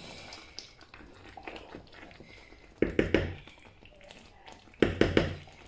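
Wooden spatula working through thick groundnut stew in a metal pan, knocking against the pan in two short clusters of quick knocks, about three and five seconds in.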